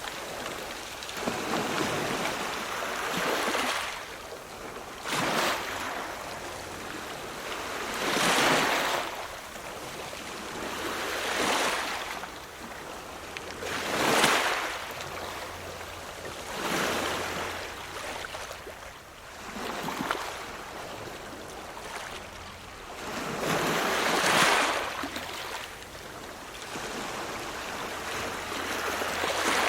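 Ocean surf: waves break and wash in one after another, a rushing surge swelling and fading every few seconds.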